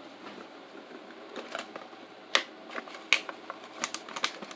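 A box being opened and its packaging handled by hand: scattered sharp clicks and crinkles over a faint rustle, the loudest about two and a half and three seconds in, with a quick cluster near the end.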